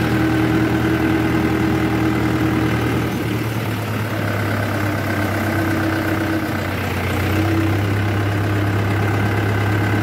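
Swaraj 843 XM tractor's three-cylinder diesel engine running steadily while pulling a loaded grain trailer, heard close to its upright exhaust.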